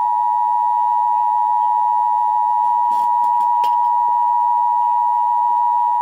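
Emergency Alert System two-tone attention signal (853 and 960 Hz together) sounding steadily and loudly, announcing a National Weather Service severe thunderstorm warning. It cuts off suddenly at the end.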